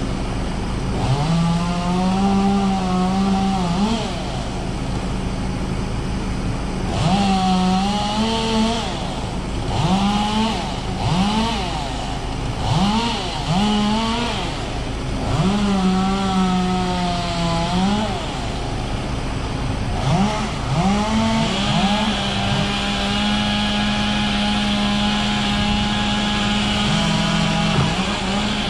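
A small engine revved up again and again in quick blips, each rising sharply and falling back. Near the end it is held steady at high revs for several seconds.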